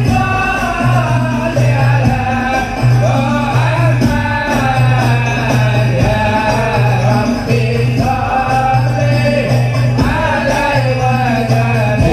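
Sholawat devotional singing with hand percussion and jingles, played loud through a live line-array PA with 18-inch subwoofers. A strong, pulsing bass runs under the voices.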